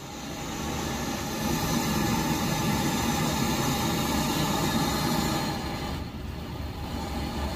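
LPG gas torch flame blowing steadily onto a crucible to melt gold, a continuous hiss over a low rumble. The high hiss eases off briefly about six seconds in.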